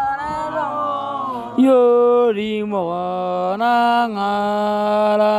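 A voice singing an Otuho (Lotuko) song in long held notes that step cleanly from one pitch to the next.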